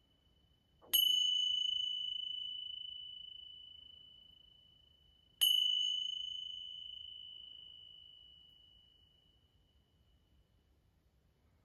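A high metal chime struck twice, about four and a half seconds apart, each strike ringing one clear tone that fades slowly over several seconds.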